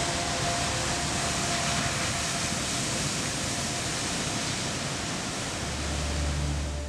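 Steady wash of breaking ocean surf, with faint sustained tones of ambient music beneath it; low droning music tones come in near the end.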